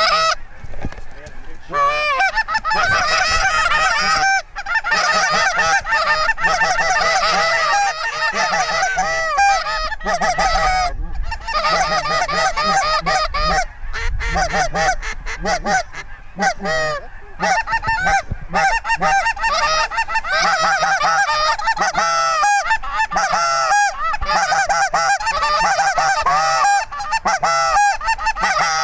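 Geese honking, many overlapping calls in a dense, nearly continuous chorus with only brief breaks.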